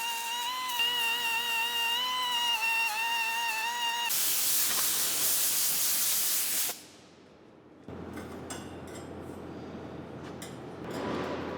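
A steady, slightly wavering whine for about four seconds, then a loud blast of compressed air hissing for about two and a half seconds that cuts off suddenly, followed by quieter shop noise with light clicks.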